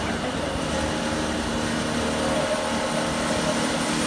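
Drilling head spindle of a CNC plasma-and-drill table running with its bit boring into a sheet-metal strip: a steady mechanical hum with a few steady tones.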